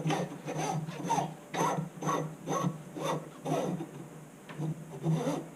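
Hand tool rasping back and forth in even strokes, about two a second, over a steady low hum; the strokes stop shortly before the end.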